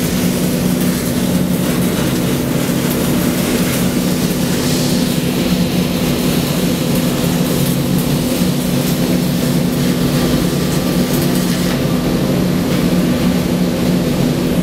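Loud, steady machinery drone inside a tunnel boring machine: a constant low hum over a broad hiss.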